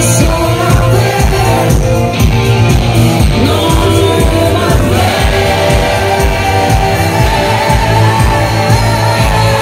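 Loud live pop music over a concert PA: women singing with microphones over a steady beat, with bass and electric guitar.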